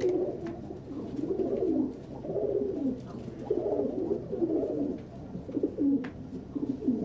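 Several loft pigeons cooing, their low coos overlapping one another, with a single short click about six seconds in.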